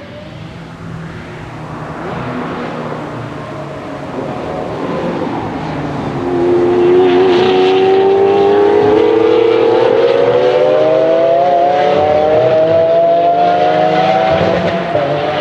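Lamborghini Aventador's V12 engine accelerating hard on track, getting louder over the first six seconds and then running at full volume with its note climbing steadily higher, with a brief break in the note near the end.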